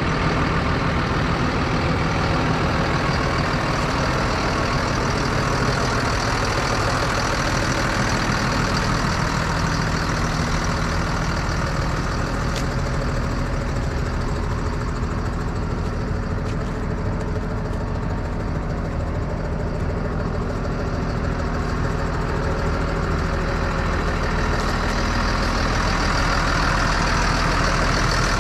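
Fendt 926 Vario tractor's six-cylinder diesel engine running steadily, heard from inside the cab; it eases slightly in the middle and picks up again near the end.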